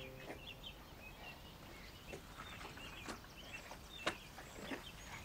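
Faint outdoor ambience with small birds giving scattered short chirps, and a couple of sharp ticks about three and four seconds in.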